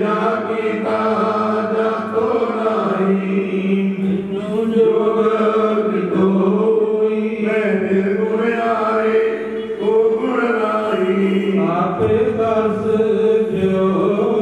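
Sikh Gurbani hymn being chanted: a voice singing long, drawn-out lines over a steady held note underneath.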